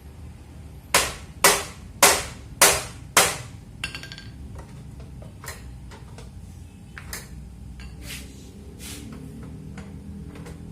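Five sharp hammer blows on metal in quick succession, about half a second apart, each ringing briefly, followed by several lighter taps and clicks.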